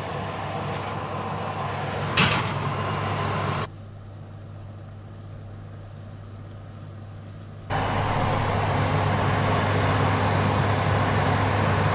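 Steady hiss and low hum of cooking: a pot of crab boiling on the hob, with a click about two seconds in. The sound drops to a quieter hum a little before four seconds in, then a louder steady hiss with a strong hum comes in near the eight-second mark as the oven holding the lobster is shown.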